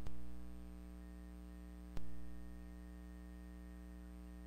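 Steady electrical hum with two sharp clicks, one at the start and one about two seconds in: computer mouse clicks.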